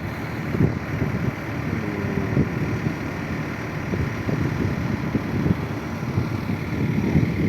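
Bulldozer engine running, a steady low mechanical noise with uneven pulsing throughout.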